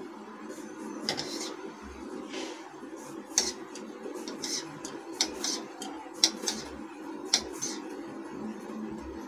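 Kitchen knife cutting through a roll of layered dough and knocking on the countertop: a series of irregular sharp taps, about a dozen, over a steady low hum.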